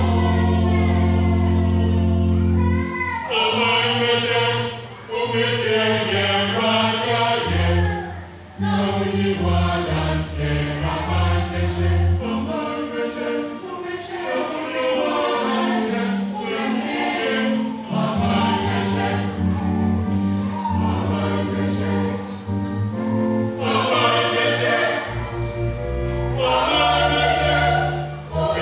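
Mixed church choir singing a gospel song, phrase after phrase with short breaks between them.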